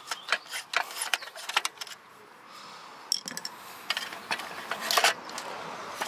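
Quick metallic clicks and rattles of hand tools and fittings as the wiring harness is unscrewed from a Fordson Dexta tractor. The clicks come in runs during the first two seconds and again about four to five seconds in.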